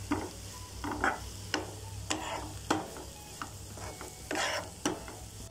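Spoon stirring and scraping chopped vegetables in a non-stick frying pan, about two strokes a second, over the sizzle of the vegetables frying.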